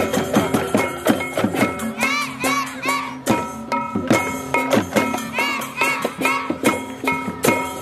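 Balinese gamelan percussion played in procession: cymbals clashing fast and evenly, with gongs and metal keys ringing through.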